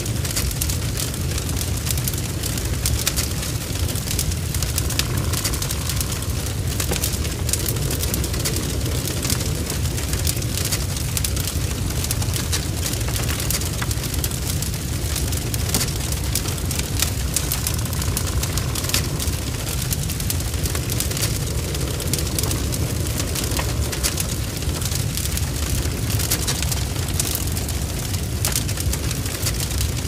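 Burning wood fire: a steady low rumble of flames with frequent crackles and spitting pops from the wood.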